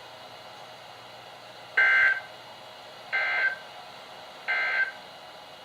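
Three short, buzzy warbling bursts of EAS/SAME digital data from a NOAA Weather Radio broadcast, about a second apart, heard through a weather radio's speaker. This is the end-of-message code that marks the close of an alert.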